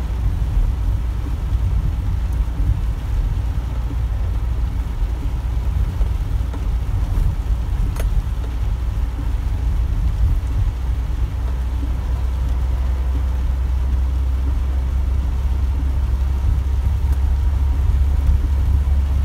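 Truck cab interior while driving on a wet road: a steady low engine and road rumble, growing a little heavier past the middle, with one sharp click about eight seconds in.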